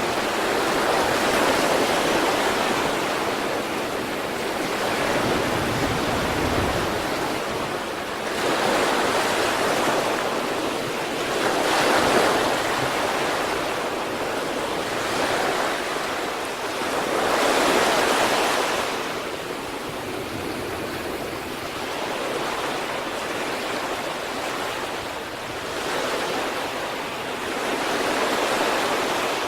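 Sea waves breaking and washing on the shore, a continuous surf that swells and recedes every few seconds, with some wind on the microphone.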